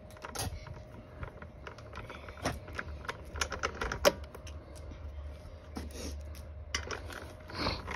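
Socket ratchet clicking in short, irregular runs as it is worked back and forth to tighten the nuts on a lawn mower's pull-start housing.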